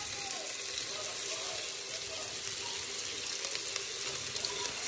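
Freshly added sliced onions sizzling in hot oil in a steel pot: a steady frying hiss with a few light crackles.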